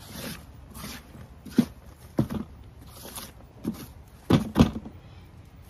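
Potato grow bag being shifted and handled: irregular rustling and scraping with several dull thumps, the loudest pair about four and a half seconds in.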